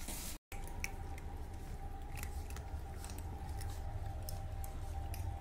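Several cats eating from food bowls: scattered small chewing clicks over a steady faint background hum.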